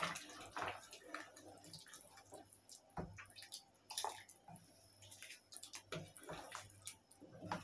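Wooden spoon stirring a pot of simmering soup: faint sloshing and dripping liquid, with a few light knocks of the spoon against the pot.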